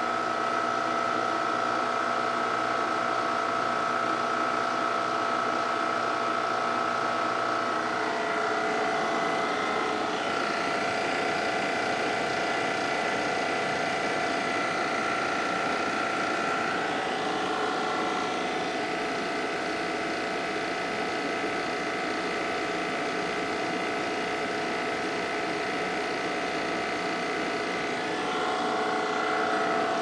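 Refrigerant recovery machine's compressor running steadily, drawing R-134a out of a car's air-conditioning system. Its steady hum shifts in pitch a few times.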